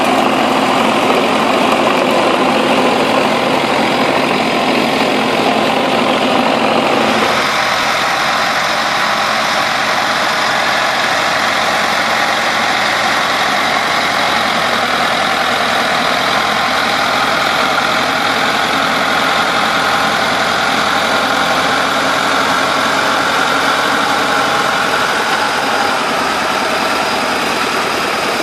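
Turbocharged T-40 tractor's air-cooled four-cylinder diesel running steadily under load, driving a rear-mounted rotary tiller through its PTO shaft. The tone shifts about a quarter of the way in.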